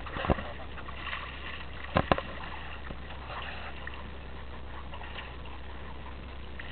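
Water sloshing against the side of a small boat, with a sharp knock near the start and a quick double knock about two seconds in.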